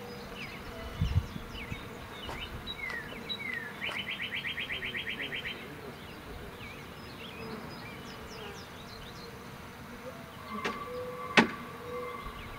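Honeybees buzzing around an opened Langstroth hive, with birds chirping and a short rapid trill about four seconds in. A sharp knock sounds near the end, and a steady tone comes in shortly before it.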